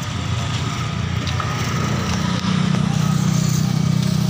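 Motorcycle engines running close by in road traffic, one growing louder about two seconds in and holding a steady low note.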